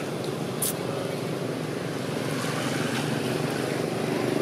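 Steady outdoor background noise with a low, even hum under it and a single sharp click about two-thirds of a second in.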